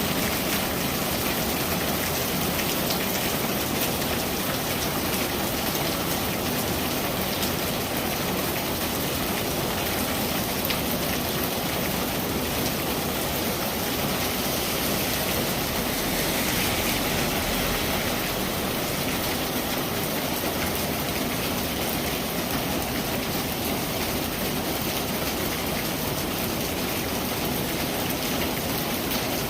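Steady rain: an even hiss of countless drops striking surfaces, with no other sound.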